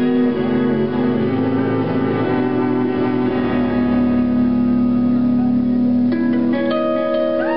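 Lap steel guitar played live: long sustained notes ringing and overlapping, with new higher notes coming in about six seconds in.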